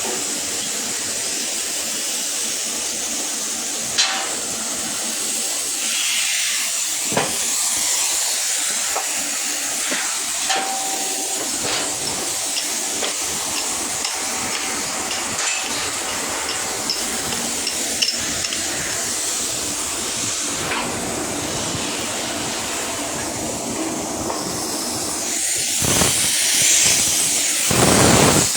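Electric arc welding: the arc sizzling and crackling steadily, with a few sharp pops, and growing louder near the end.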